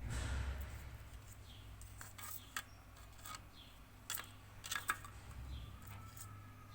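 A few faint, short clicks and taps, scattered irregularly, over a low steady hum.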